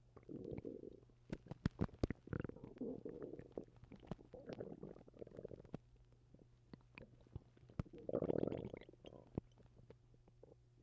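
A person's stomach gurgling and rumbling in several separate bursts, with small pops and clicks between them. The loudest gurgle comes near the end.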